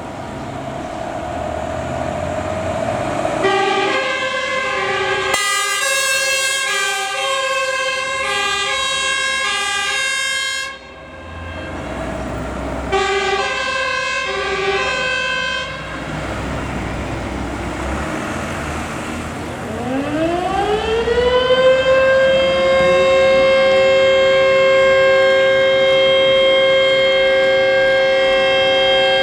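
Fire engine's two-tone compressed-air horn, alternating between two notes for several seconds, then again briefly after a short gap. About two-thirds of the way in, a fire-alarm siren winds up and holds a steady tone, sounding the fire brigade alarm.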